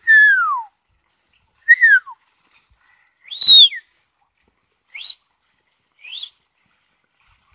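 A person whistling five short sliding notes close by: the first two fall in pitch, a loud arched note comes in the middle, and the last two rise.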